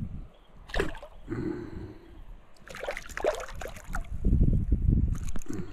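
Shallow river water sloshing and trickling close to the microphone, with a few short splashes and a low rumble about four seconds in.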